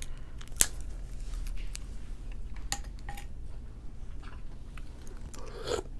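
A few sharp clicks and light taps of shellfish and food being handled over a seafood-boil tray, the loudest click about half a second in, over a faint steady low hum.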